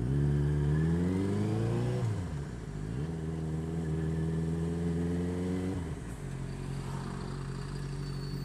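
Motorcycle engine pulling away, its pitch rising, dropping with a gear change about two seconds in, then rising again before easing back to a steady lower note about six seconds in.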